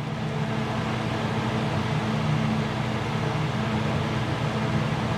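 A small electric motor running steadily with a low hum and an even whir.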